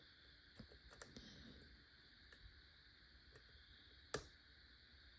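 Faint, scattered clicks from a lock pick and tension wrench working the pins of a high-security pin-tumbler challenge lock, with one sharper click about four seconds in.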